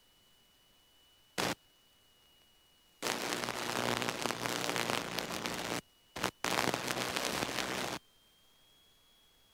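Aircraft radio static: a short click, then about five seconds of loud hiss that cuts in and out abruptly, a transmission opening the squelch with no readable words.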